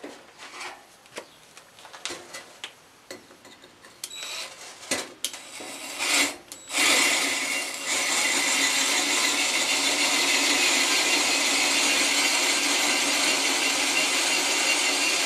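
A few short clicks and knocks of handling, then, about seven seconds in, a cordless drill starts and runs steadily with a grinding rasp as its bit bores into a soft insulating firebrick.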